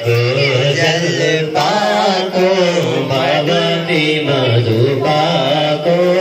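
Devotional chanting of a Hindu mantra or hymn, sung melodically and continuously over a steady low drone.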